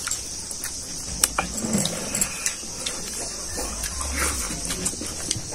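Eating sounds of people eating rice and pork liver curry by hand: chewing and lip-smacking with scattered sharp clicks, over a steady high hiss.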